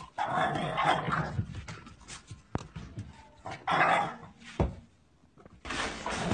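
A dog barking in two outbursts about three seconds apart, the first lasting about a second. Near the end a steady noise takes over.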